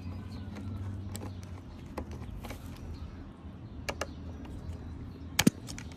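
Screwdriver working screws out of a car seat's plastic side trim: scattered light clicks of metal on screw and plastic, with a pair about four seconds in and a sharper click near the end, over a low steady hum.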